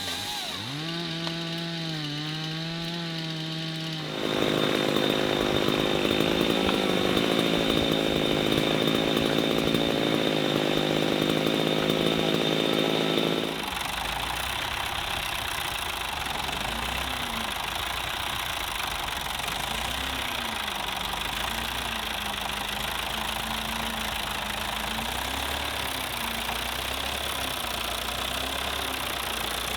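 Small engine revving unevenly, then held loud at full speed for about nine seconds before it drops away. After that a deeper engine runs steadily, its tone wavering.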